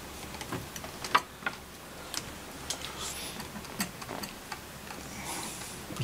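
Irregular light clicks and taps of small hand tools and polymer clay pieces being handled and set down on ceramic tiles, the sharpest about a second in.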